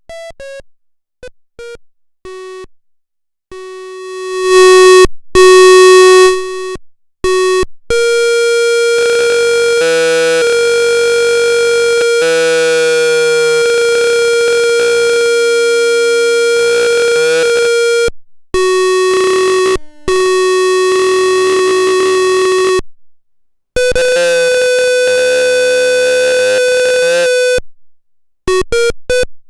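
Electronic tones from a homemade student-built sound circuit: first a quick run of short beeps at changing pitches, then long, steady, loud tones held for several seconds at a time. The tones switch on and off abruptly, with lower tones shifting beneath them in the middle stretch.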